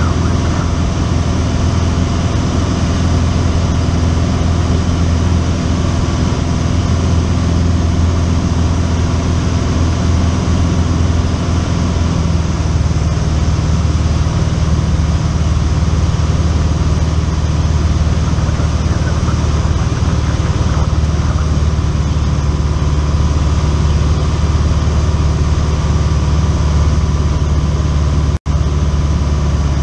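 Light single-engine plane's piston engine and propeller droning steadily, heard inside the cabin. One of the tones drops to a lower pitch about twelve seconds in, and the sound cuts out for an instant near the end.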